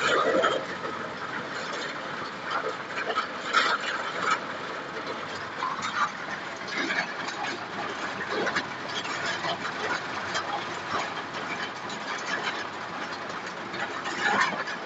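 Heavy rain beating on a car's windshield and roof, heard from inside the car: a steady rushing hiss with irregular louder spatters.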